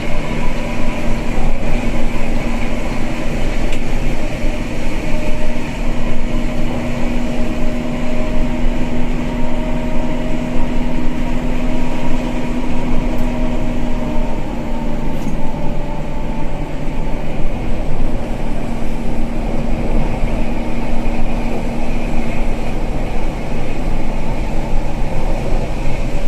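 Cabin noise of a luxury coach driving at speed: a steady drone of engine and tyres, with a humming tone that shifts lower about halfway through.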